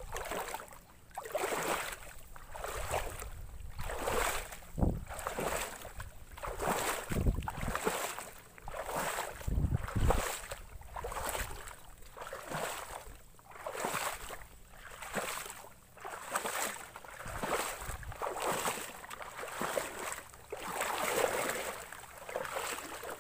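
Footsteps wading through shallow marsh water and weeds, a slosh and swish about once a second at a steady walking pace, with a few low thumps near the middle.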